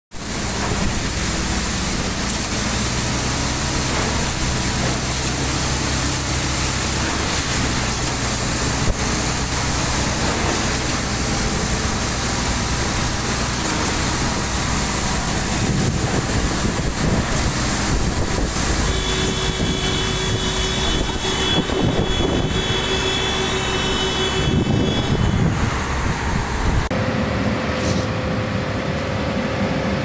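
Diesel engines of concrete pump and mixer trucks running steadily during a concrete pour. A high whine joins in for several seconds past the middle, and the sound shifts to a different steady hum near the end.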